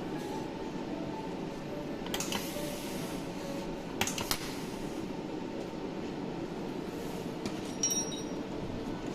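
Steady low mechanical hum, broken by sharp clicks about two seconds in, twice around four seconds, and once near the end.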